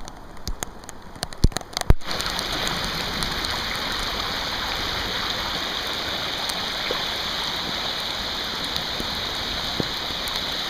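Heavy rain: for the first two seconds scattered drops tick close by, then a steady hiss of downpour sets in abruptly.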